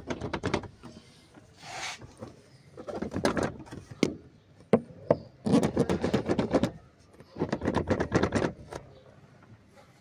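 Suzuki Mehran dashboard rattling while the car is driven: irregular bursts of fast clicking and buzzing, coming and going every second or two as the car moves over the road.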